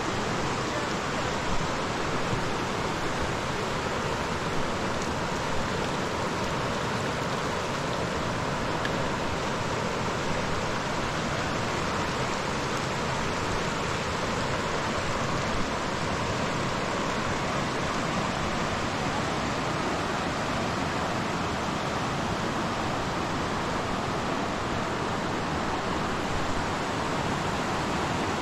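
A big, fast river rushing steadily, with a few brief faint knocks here and there.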